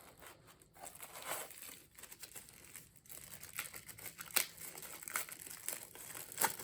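Packaging being crinkled and unwrapped by hand, with irregular small crackles and sharp clicks.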